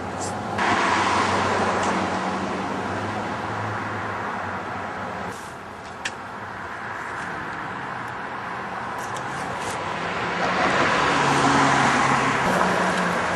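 Road traffic noise: a steady motor hum under the rush of vehicles, swelling about a second in and again near the end.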